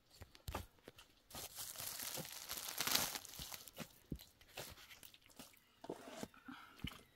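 Rustling, crinkling noise that swells for about two and a half seconds, starting just over a second in, among scattered small knocks and clicks.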